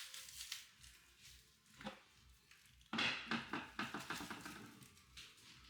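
Faint handling noises: a single click a little under two seconds in, then about a second of rapid small ticks and scraping that fades away.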